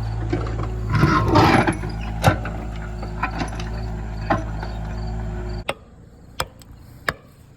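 A steady low hum under scattered sharp knocks and a brief clatter about a second in. The hum stops abruptly about five and a half seconds in, leaving a few isolated sharp knocks.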